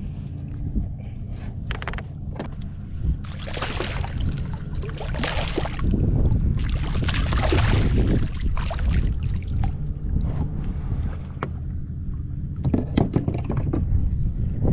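Kayak being paddled: a series of paddle strokes swishing through the water, over a steady low rumble.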